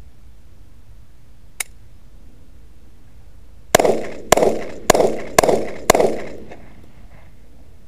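Ruger SR40C compact .40 caliber pistol fired five times in quick succession, about half a second apart, each shot trailing off in an echo. A single sharp click comes about two seconds before the first shot.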